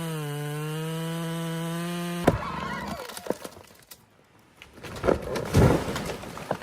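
A chainsaw running steadily at high revs, cut off abruptly about two seconds in, followed by a string of irregular cracks and knocks, loudest near the end.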